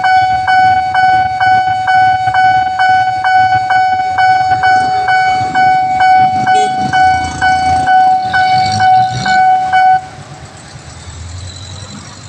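Railway level crossing warning alarm sounding: a steady high electronic tone, re-struck by a quick repeating tick about three times a second. It cuts off suddenly about ten seconds in, leaving a much quieter low rumble.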